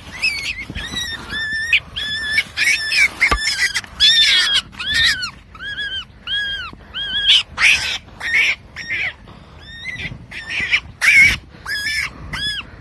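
A run of high-pitched animal squeaks, about one or two a second, each call arching up and down in pitch.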